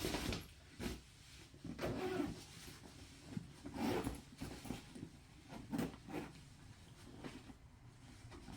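Irregular knocks and rustles of an air compressor, hose and tyre deflator being handled and packed into a portable carry case.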